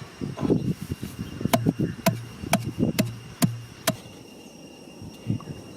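Six sharp knocks about half a second apart, each with a dull thud, after a few softer thumps: something being struck repeatedly by hand or with a tool.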